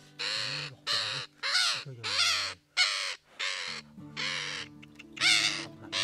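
A grey-headed green parakeet, held in the hand, squawks about ten times in quick succession. The screeches are harsh and half a second or shorter, typical of a caught parrot's distress calls. Music plays underneath.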